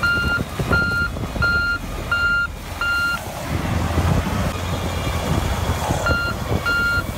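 A heavy crawler machine's reversing alarm beeps about every 0.7 seconds over a low diesel engine rumble. The beeping drops out for about three seconds in the middle, where a noisy clatter of cracking and crunching comes as the dozer goes over onto the log pile. The beeping then resumes near the end.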